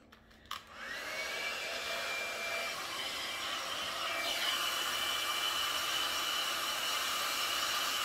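Conair Infinite Spin hot-air brush switched on with a click, its fan whining up to speed and then blowing steadily with a high whine. About four seconds in, the whine steps up to a higher pitch.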